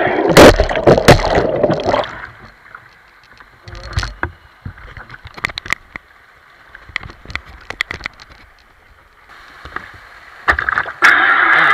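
RC jet boat splashing through a rapid, with loud knocks in the first two seconds as the hull hits water and rock. The motor then drops away, leaving faint water and scattered small knocks of the hull against stones, until a loud steady motor sound returns near the end.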